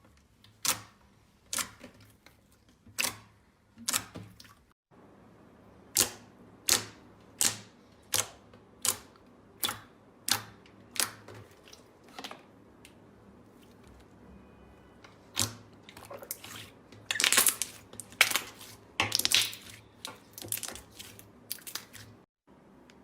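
Slime being pressed and poked with the fingers, giving a series of sharp pops and clicks about one a second, then denser crackly clusters of pops in the second half.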